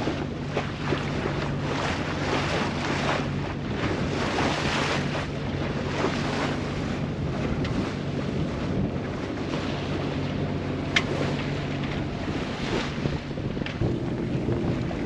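Wind gusting across the microphone aboard a sailing yacht, with water washing along the hull. Underneath runs a steady low drone that changes pitch near the end.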